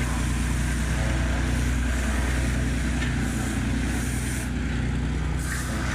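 JCB ride-on tandem roller's engine running steadily as the roller drives over loose slag to compact it.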